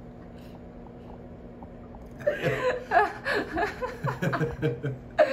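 A man laughing, starting about two seconds in after a quiet stretch, with a sudden louder burst near the end.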